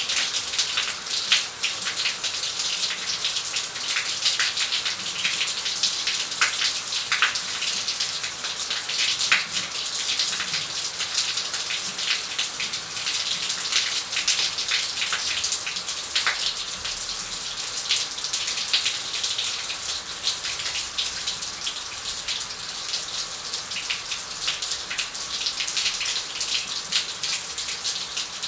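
Shower running steadily, its spray hissing and pattering with many small splashes as the water strikes the bathroom surfaces.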